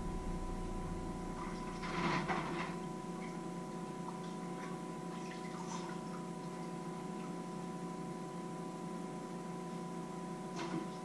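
Washing up at a kitchen sink: a brief clatter and splash about two seconds in, a few small clinks of dishes, and another short clatter near the end, over a steady electrical hum.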